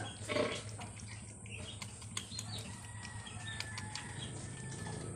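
Faint farm-pen background: a steady low hum with scattered light clicks, and a short animal call in the first half second.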